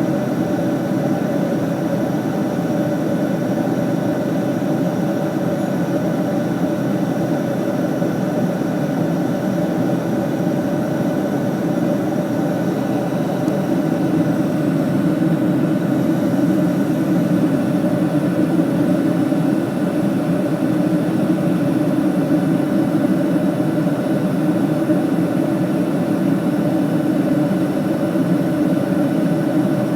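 Steady drone of a jet airliner in flight, its engine and airflow noise heard from inside the cabin.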